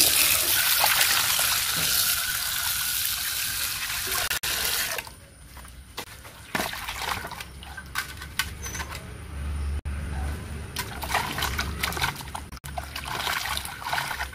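Tap water running and splashing into an aluminium bowl as scored fish is rinsed by hand. The flow drops away about five seconds in, leaving small clicks and splashes, and runs again from about nine seconds.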